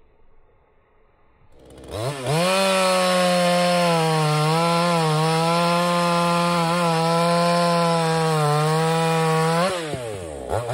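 Muffler-modded Neotec NCS6200 two-stroke chainsaw, its carburetor retuned, is run up to high revs about two seconds in. It holds steady under load with small dips in pitch as it cuts into a log, then drops back toward idle near the end with one brief rev.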